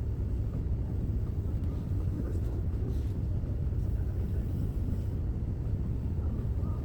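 Potter's wheel spinning, a steady low rumble that stays even throughout.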